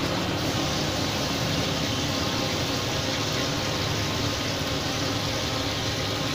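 Hot oil sizzling steadily in a large steel kadhai as battered chicken pieces deep-fry.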